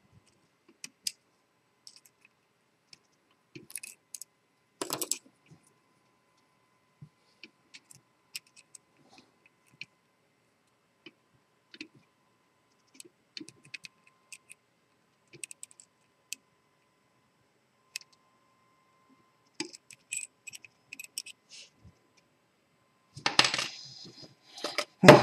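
Sparse small metallic clicks and taps of a pick turning the discs inside a three-disc Sargent & Greenleaf disc-detainer padlock, with a louder knock about five seconds in and a burst of clattering near the end.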